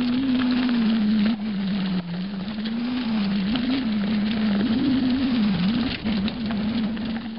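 2011 Specialized Rockhopper mountain bike rolling fast down a dirt singletrack: a continuous hum from the rolling wheels that rises and falls in pitch with speed, over rattling and knocking of the bike across bumps and roots.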